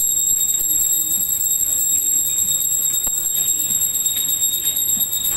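A steady high-pitched whine, one constant tone with higher overtones, over a faint background murmur.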